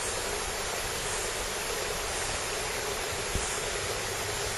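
A steady, even hiss, with one faint click about three seconds in.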